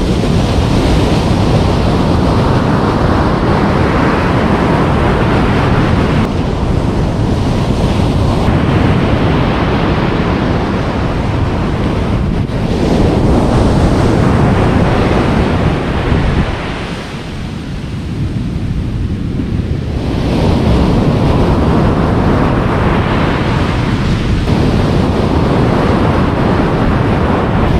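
Surf breaking on a beach, with wind buffeting the microphone. The wash eases for a few seconds a little past halfway, then builds again.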